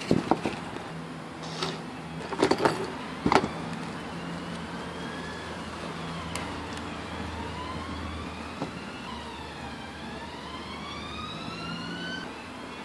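A few sharp clicks and scrapes from handling small parts in the first few seconds. After that, a siren wails for most of the rest, quieter than the clicks, its pitch slowly rising and falling.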